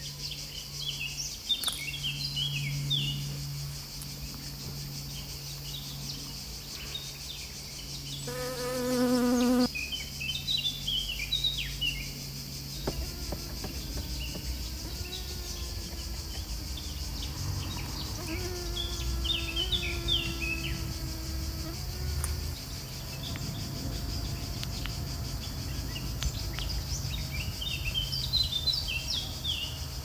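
Bees buzzing at flowers: a steady low hum for the first half, a louder buzz about eight seconds in as one passes close, then a higher buzz that rises and falls. Small birds chirp in short bursts several times.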